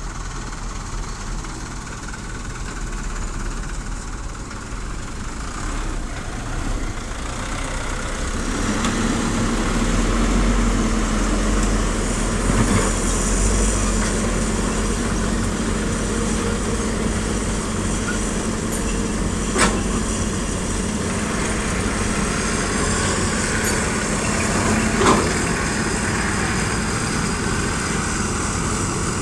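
Heavy diesel machinery running steadily at an excavator-and-dump-truck loading site. The drone grows louder and takes on a steady hum about a third of the way in. Two sharp knocks come later.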